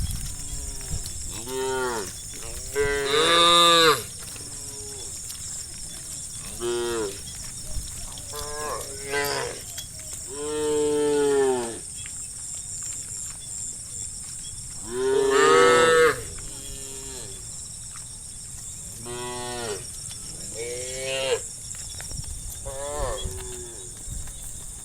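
A herd of cows mooing, one call after another, several overlapping. Each moo rises and falls in pitch, and a few long loud moos stand out, over a steady high-pitched hiss.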